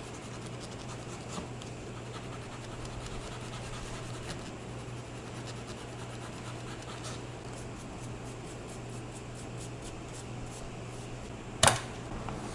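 Rubber eraser scrubbed back and forth over the gold contacts of a RAM stick to clean off grime, a steady scratchy rubbing made of many quick strokes. Near the end comes one sharp click as the module is pushed into a motherboard memory slot.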